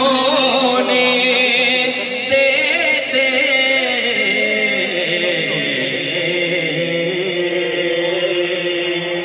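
Devotional naat chanted by male voices over a sound system, in long held notes that waver slowly in pitch.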